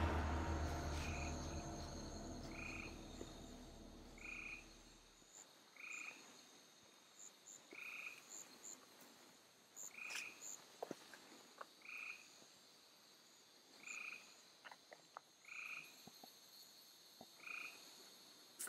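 A frog croaking with a short call about every two seconds, over a steady high-pitched insect drone. Fading background music trails off over the first few seconds, and a few faint ticks sound near the middle.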